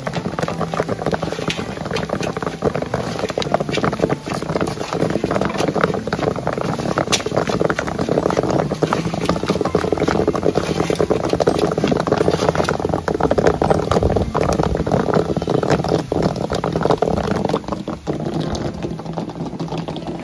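Popcorn popping in a large iron kadai over a wood fire: a dense, continuous crackle of many kernels bursting every second.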